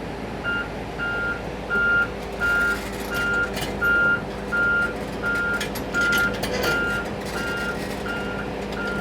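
Volvo 210 excavator's travel alarm beeping steadily, a bit under two beeps a second, over its running diesel engine as the machine moves onto the lorry, with a few metal clanks.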